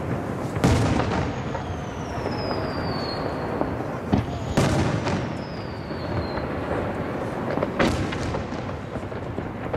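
Aerial firework shells bursting, with sharp booms about half a second, four and a half, and eight seconds in, and a long rolling echo off the surrounding mountains filling the gaps between them. Twice a high whistle slowly falls in pitch.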